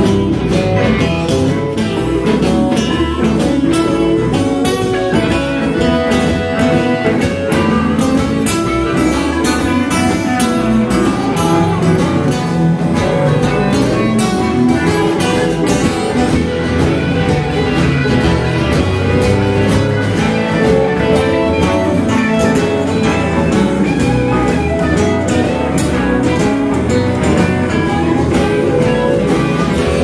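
Live blues band playing instrumentally: several electric guitars with a harmonica, steady and loud.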